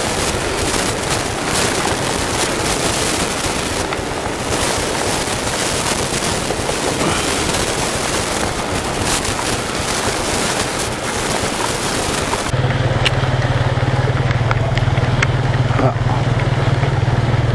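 Clear plastic bag crinkling and rustling right against the microphone. About twelve seconds in, after a cut, a motor scooter's engine hums steadily while riding through a flooded street in rain.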